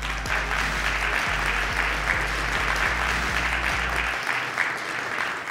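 Audience applauding, over background music with a steady low beat; the music stops about four seconds in while the applause carries on.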